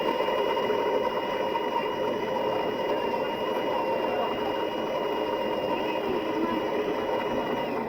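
Philips 5400 bean-to-cup coffee machine running with a steady whirring hum that holds a few fixed tones, then stops abruptly near the end.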